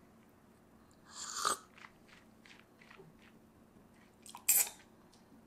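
A person sipping and tasting espresso: a sip with a hiss of indrawn air about a second in, a string of faint lip smacks and tongue clicks as the very tart shot is tasted, then a louder slurp from a ceramic cup near the end.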